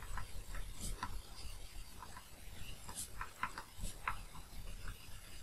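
Stylus tapping and scratching on a tablet surface while writing by hand: faint, irregular short clicks.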